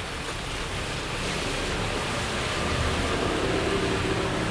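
Heavy rain falling in a steady hiss, growing a little louder over the few seconds, with a faint low hum coming in about halfway through.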